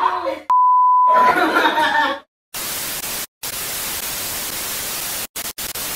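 A censor bleep, one steady tone under a second long, over laughing voices. From about two and a half seconds in comes TV-style static hiss, cut by a few brief drop-outs.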